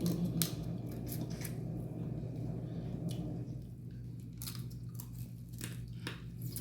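Eating seafood close to the microphone: scattered sharp clicks and crunches of chewing and handling food, over a steady low hum that fades out about three and a half seconds in.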